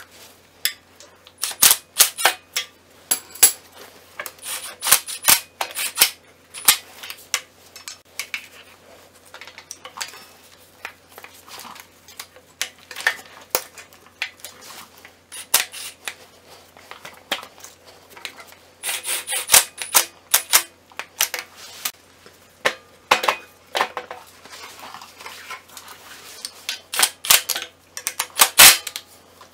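Socket ratchet clicking in irregular short bursts, with metal tools clinking against bolts, as the starter motor's mounting bolts are run in and tightened.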